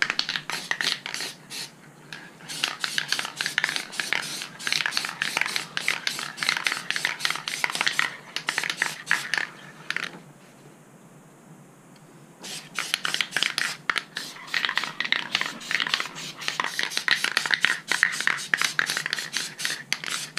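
Aerosol spray paint can being shaken, its mixing ball rattling fast and hard inside, in two long spells with a pause of about two seconds just after halfway.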